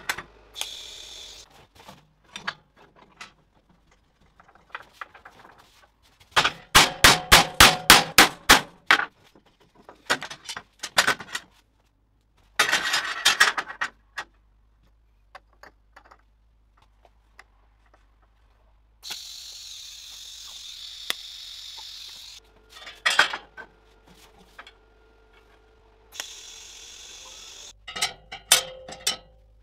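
Stainless steel tubes clinking and clanking on a steel welding table as they are handled and fitted. A few seconds in comes a fast run of about a dozen loud metal strikes, about six a second, and later there are two stretches of steady hiss.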